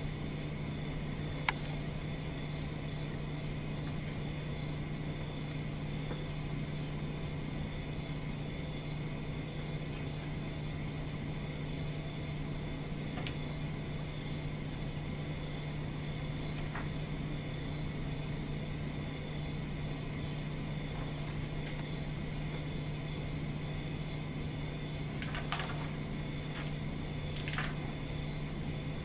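Steady low hum under a constant hiss, with a few faint clicks, one about a second and a half in and a couple near the end.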